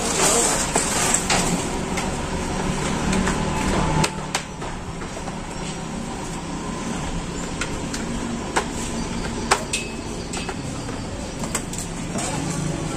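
Scattered clicks and knocks of hard plastic wardrobe parts being handled and fitted together, over a steady low hum. One knock, about nine and a half seconds in, is sharper than the rest.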